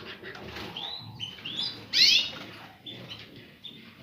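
Caged finches chirping: a series of short, curved chirps, with a louder burst of several quick notes about two seconds in.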